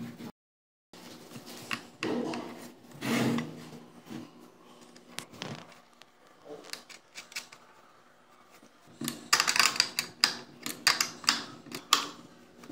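Handling knocks and rubs on a small blower and its wooden base, then, for the last few seconds, a fast run of sharp metallic clicks as a wrench tightens a nut on the blower's mounting bolts.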